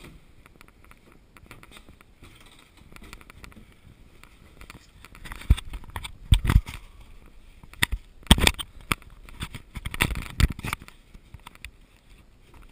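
Knocks, thumps and scrapes of a person moving down a wooden-slatted ramp and handling the camera. It is quiet at first with faint clicks, then from about five seconds in come a cluster of loud, sharp bumps lasting several seconds.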